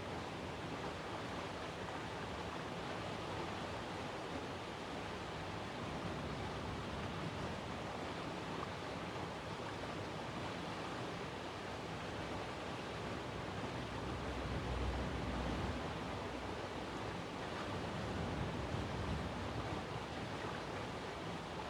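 Steady outdoor background noise, an even hiss with no siren tone in it, with a low rumble that swells for a couple of seconds about two-thirds of the way through.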